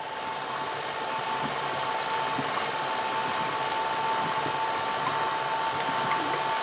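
KitchenAid Artisan stand mixer running steadily, its flat beater turning through a batter of beaten eggs and tapa de dulce; the motor gives a constant whine over an even whir.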